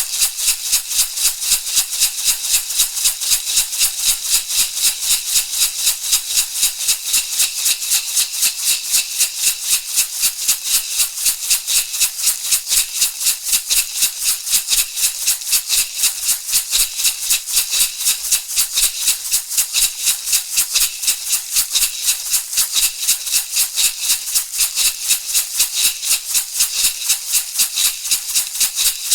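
Shamanic rattle shaken in a fast, even, unbroken beat of several crisp shakes a second, each a bright rattling of seeds or pebbles inside.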